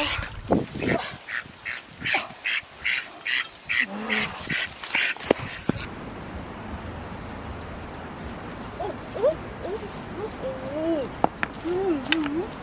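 Domestic duck quacking in a steady series, about a dozen loud quacks at two to three a second as it is held after being caught. The quacking stops about six seconds in.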